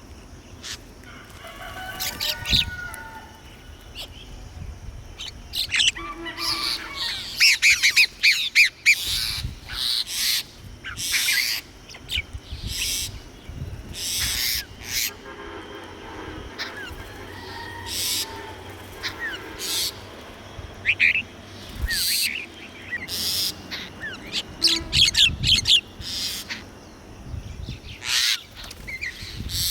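Wild birds calling: many short, sharp chirps and calls coming in quick runs, with a few longer, lower pitched calls among them.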